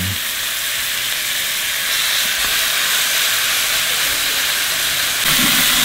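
Pronghorn backstrap searing in a hot cast-iron skillet with garlic butter: a loud, steady sizzle that grows a little louder about five seconds in.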